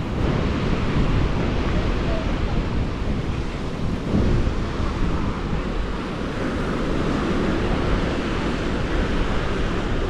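Ocean surf breaking on a sandy beach, a steady wash of waves, with wind buffeting the microphone.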